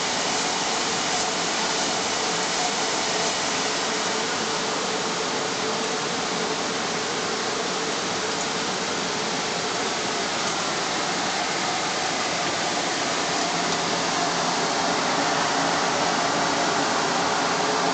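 Elio Valeri 4M/65E wood copy lathe running with its sanding unit turning: a steady whirring noise with a faint hum, growing slightly louder near the end.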